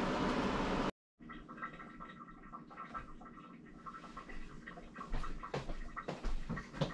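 Steady noise of a kitchen range hood fan that cuts off suddenly about a second in. After it comes a quiet room with a faint steady hum and a few soft knocks near the end.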